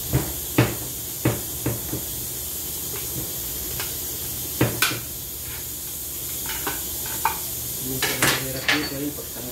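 Sharp metal clinks and knocks as internal parts and tools are handled inside an automatic transmission case during disassembly: a few taps early on, a pair midway and a quick cluster near the end, over a steady background hum.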